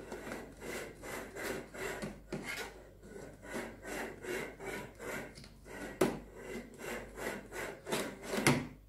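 Rhythmic scraping as a metal springform pan is turned in short strokes while a metal offset spatula is held against the cream-cheese filling to smooth it, about two to three strokes a second, with a couple of sharper knocks near the end.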